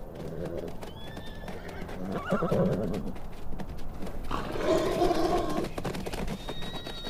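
Namib desert wild horses walking over stony ground, hooves clopping and crunching on gravel. A horse whinnies twice, a short call a little over two seconds in and a longer one about four and a half seconds in.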